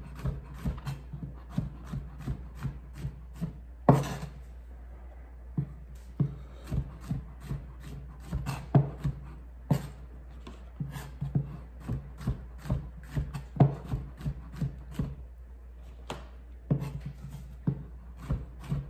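Chef's knife slicing mushrooms on a plastic cutting board: the blade knocks on the board in an uneven run, about two a second, with one louder knock about four seconds in.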